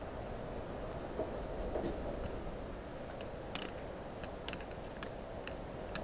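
Scattered faint clicks of a pump oil can being worked as oil is squirted onto a model steam engine's crank and bearings, several of them in the second half, over a low steady hum.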